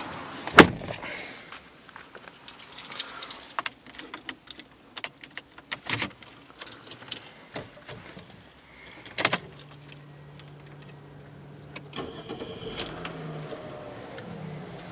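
Clicks, knocks and rattles from a 2010 Chevrolet Epica's steering column being adjusted by hand. The mechanical height-adjust lever releases with a sharp clack and the wheel rattles as it is moved up and down. After about nine seconds a low steady hum comes in.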